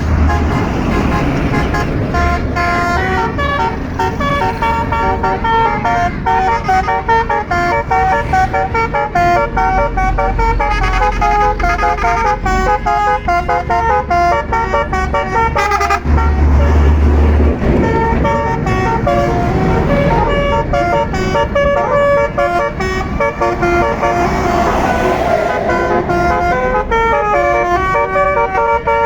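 A tour bus's multi-note Basuri telolet horn plays a fast tune of short, stepped horn notes. There is a brief low rumble a little past halfway.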